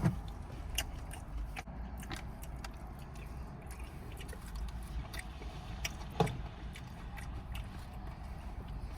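A person chewing and biting food, with scattered small clicks over a steady low hum and one louder click about six seconds in.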